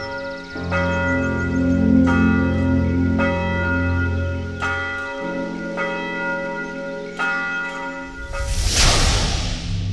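Bell tones struck about every second and a quarter, each ringing on, over a low sustained drone whose note shifts about halfway through. Near the end a loud rushing whoosh sweeps in and fades.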